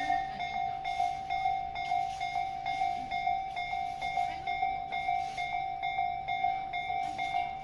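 Japanese railway level-crossing alarm ringing, an electronic two-tone-style clang repeating evenly about twice a second, with train running noise underneath.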